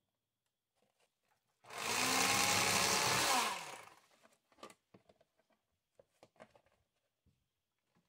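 Electric fillet knife running for about two seconds as it cuts through a walleye, starting about a second and a half in, its motor pitch dropping as it is switched off. Small clicks and taps from handling the knife and fish follow.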